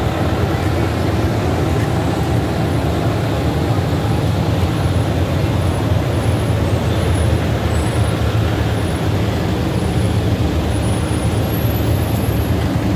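Steady low rumble of idling tour minibuses.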